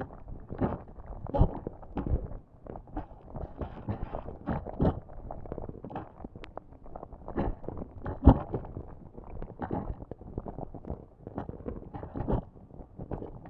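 Lava sound effect: thick, molten material bubbling and popping in an irregular run of low pops and blurps. One louder pop comes about eight seconds in.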